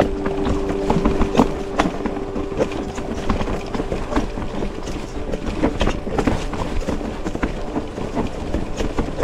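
Mountain bike rolling over rough, rocky ground: continuous rattling and clattering with irregular sharp knocks, over tyre and wind noise. A steady hum is heard in the first half and fades out.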